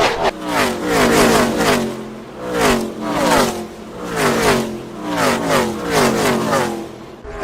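Gen 6 NASCAR V8 stock cars passing at racing speed one after another, each engine note dropping in pitch as it goes by: a pack streaming past.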